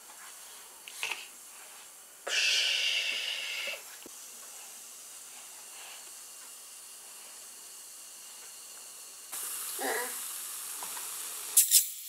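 Liquid fizzing in a glass: a steady soft hiss, with a louder burst of hissing from about two seconds in that lasts a second and a half. A brief voice sounds near the end.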